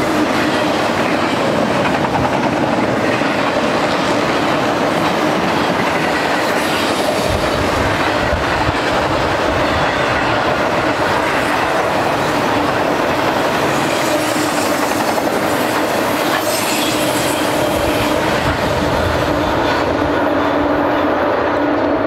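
Cars of a long intermodal freight train rolling past, with the steady noise of steel wheels on the rails and a steady tone running under it.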